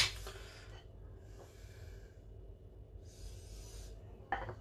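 Soft breathing close to the microphone, three faint breaths. Near the end comes one short knock as a hand takes hold of a ceramic plate on the stone counter.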